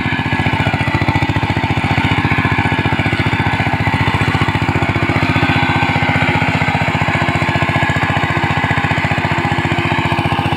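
Kamco Super DI 120 power tiller's single-cylinder diesel engine running steadily under load, with a fast even firing beat, as its rotor churns through flooded paddy mud.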